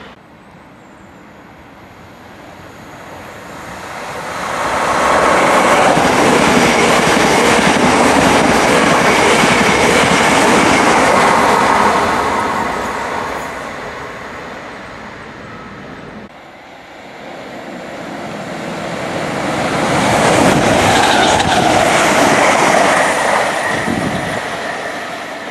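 Two electric multiple-unit trains running through a station one after the other. The first grows loud about four seconds in, holds, and fades away after about twelve seconds; after a sudden break the second builds up and is loudest a little past twenty seconds before easing off.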